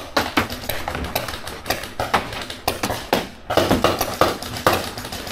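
Paintball markers firing: a run of sharp pops, several a second at uneven spacing, some louder than others.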